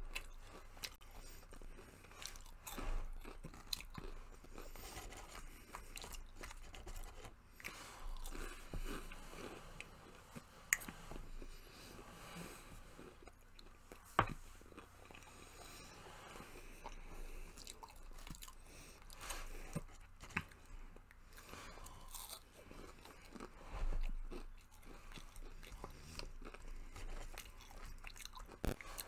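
Close-up chewing and crunching of fried fast food, Burger King onion rings and chicken nuggets, in irregular bites, with a couple of sharp clicks along the way.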